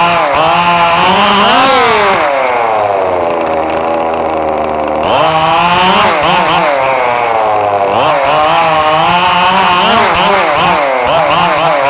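Small two-stroke engine of an RC car revving up and down. One long rev falls away slowly over about three seconds, then quicker, repeated blips of the throttle start about five seconds in.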